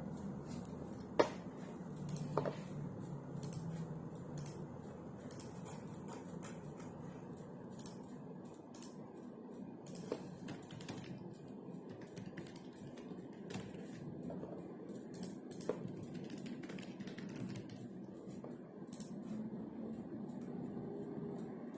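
Typing on a computer keyboard: runs of quick, uneven keystrokes with a few sharper, louder clicks, the loudest about a second in, over a low steady hum.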